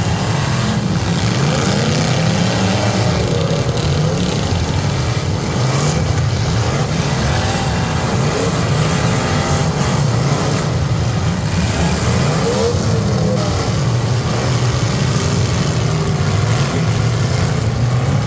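Engines of a field of demolition derby stock cars running together, many revving up and down over one another in a loud, steady din.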